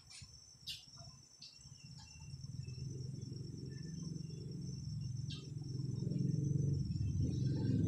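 Insects trilling steadily in high, unbroken tones, with a few faint clicks in the first seconds. From about two seconds in, a low rumble builds and grows steadily louder.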